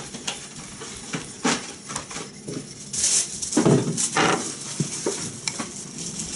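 A wet Chosera 3000 finishing waterstone being handled in its base, with irregular scraping and knocking, then a steel knife blade starting to stroke across the stone near the end. The loudest knocks and scrapes come about three to four seconds in.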